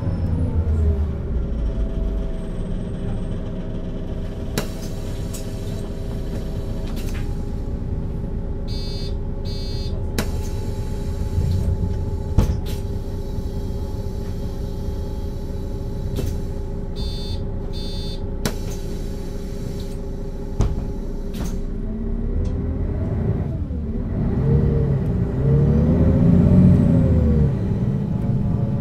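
Mercedes-Benz O 530 G Citaro articulated bus: the engine winds down, then idles with a steady hum while the bus stands. Two short high electronic signals sound about 9 and 17 seconds in. Near the end the engine pulls away, rising in pitch and getting louder through the gears of its ZF automatic gearbox.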